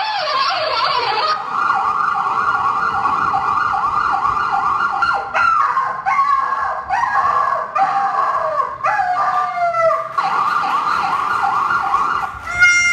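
Recorded emergency-vehicle siren sound effect, a fast rising-and-falling wail with several siren tones overlapping, played over a hall PA as part of a mime soundtrack. A hiss of noise sits under it for about the first second and a half.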